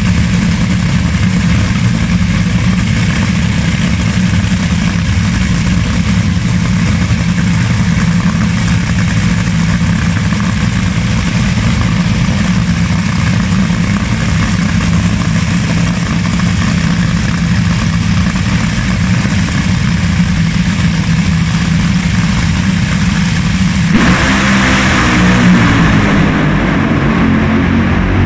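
Two nitromethane-fuelled Top Fuel dragsters idling loud and rough at the start line. About 24 seconds in they launch at full throttle: a sudden, much harsher blast of engine noise as the cars race away down the strip.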